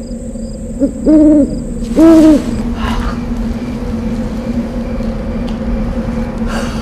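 Owl hooting twice, two loud, even hoots about a second apart, over a steady low drone of night ambience.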